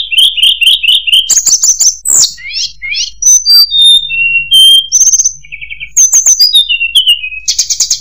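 Tledekan gunung, a blue flycatcher, singing a fast, varied song. It runs through high whistled notes at changing pitches, quick repeated chirps and short trills, ending in a dense buzzy trill.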